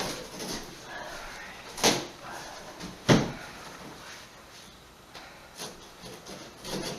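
Two sharp knocks about a second apart, with lighter knocks and clatter around them.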